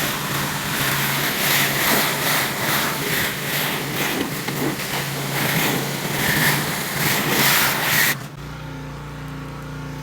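Pressure washer spraying plain water in a loud, steady hiss over the hum of its engine; the spray cuts off suddenly about eight seconds in, leaving the engine running on its own.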